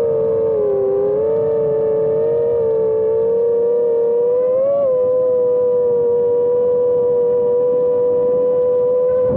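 Five-inch FPV quadcopter's brushless motors and propellers whining steadily, as heard from its onboard camera. The pitch dips slightly about a second in and rises briefly near five seconds in with the throttle, then holds level.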